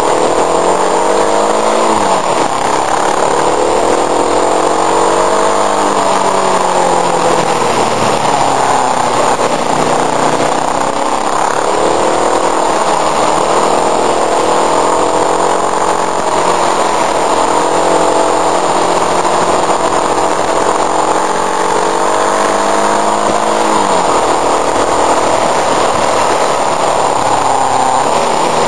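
Motorcycle engine running under way up a winding climb, its pitch rising and falling with the throttle and dropping sharply a few times, with steady wind rush over the bike-mounted microphone.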